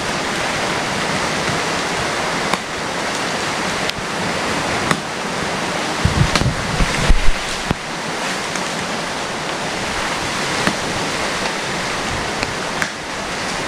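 Steady rushing noise of sea water, with scattered sharp knocks and a louder low rumble and knocks about six to seven seconds in.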